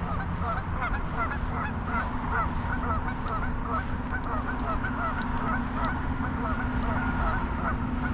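Geese honking continuously, many calls overlapping in a dense chorus, over a steady low rumble.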